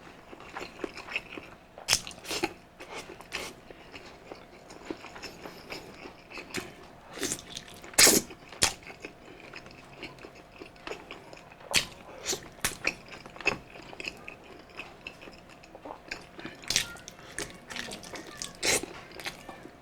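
A person chewing and smacking close to the microphone: irregular wet mouth clicks and smacks, with a sharper one about eight seconds in.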